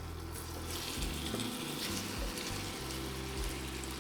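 Chicken strips sizzling in hot olive oil in a cast iron wok, a steady hiss that grows louder about a second in.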